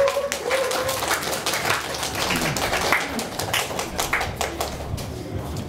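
A small audience clapping by hand, the applause thinning out near the end.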